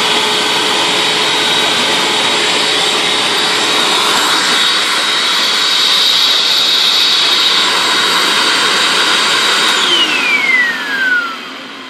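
Hoover WindTunnel Anniversary Edition self-propelled upright vacuum running steadily with a high whine. About ten seconds in it is switched off, and the motor winds down, its whine falling in pitch as it slows.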